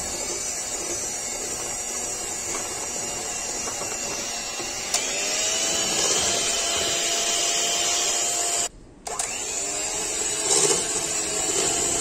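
Electric hand mixer running at low speed, its beaters whisking a thick whipped jelly cream in a stainless steel bowl. The motor steps up slightly about five seconds in and drops out for a moment about nine seconds in.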